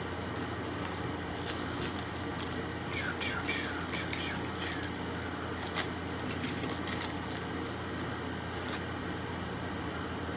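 Small plastic packets of enamel pins being opened and handled by hand: a cluster of crinkles and light clicks about three to five seconds in, then a few single ticks, over a steady low room hum.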